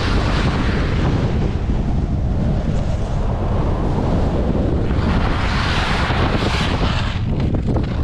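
Wind rushing over the microphone of a skier moving downhill, a steady low rumble, with the hiss of skis sliding and carving through snow swelling during turns, loudest from about five to seven seconds in.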